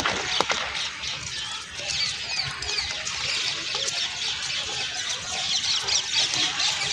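Many small birds chirping at once, a dense chatter of short high chirps. A couple of sharp clicks come in the first half second.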